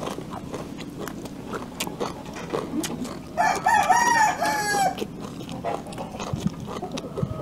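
A rooster crows once, about three seconds in, for about a second and a half, rising and falling in pitch. Small clicks of close-up chewing and crunching of raw vegetables run around it.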